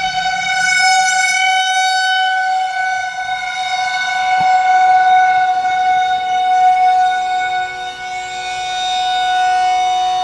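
Rooftop civil-defence warning siren sounding one long steady tone, its loudness slowly swelling and fading.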